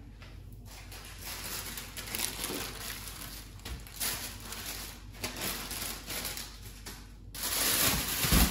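Plastic roasting bag crinkling and rustling as it is handled and rosemary is added to the marinating lamb. About seven seconds in, a louder steady hiss takes over.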